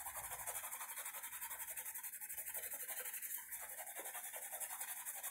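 Pastel stick scratching across dark pastel paper in quick, regular back-and-forth strokes.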